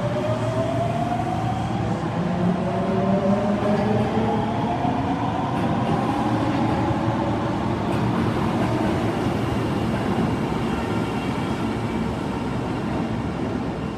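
Osaka Metro Tanimachi Line 22 series subway train accelerating: the motor whine climbs steadily in pitch for the first six seconds or so, over steady rail running noise, then levels off as it runs on.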